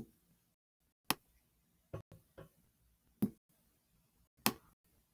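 Computer mouse clicking while a shape is selected and dragged: a series of short, sharp single clicks, roughly one a second.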